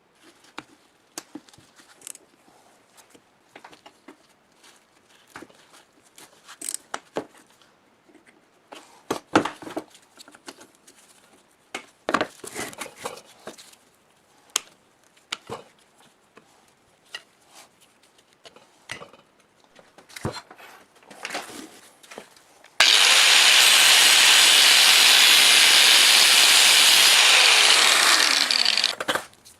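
Metal parts and hand tools handled on a bench, with scattered clicks and knocks. Then a power tool starts suddenly, runs loudly and steadily for about six seconds, and winds down.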